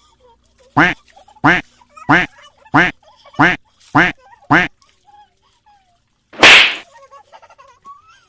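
A bird calling seven times in an even series, short calls about two-thirds of a second apart. Then, about two-thirds of the way in, one loud splash of water, as from a bucket of ditch water being dumped.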